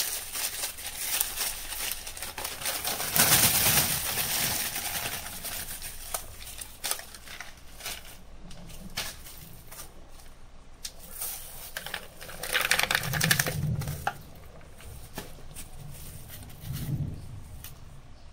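Pumice stones being poured from a plastic bag into a plastic mesh net: plastic rustling with scattered light clicks of stones, loudest a few seconds in and again about twelve seconds in.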